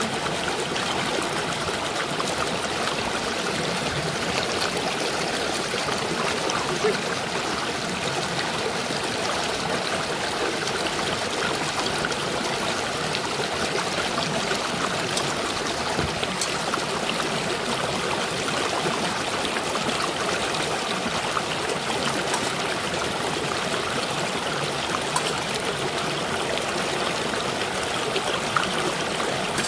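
Shallow mountain stream rushing steadily over rocks and a small cascade, with a few light metal clinks of a spoon in a steel pot.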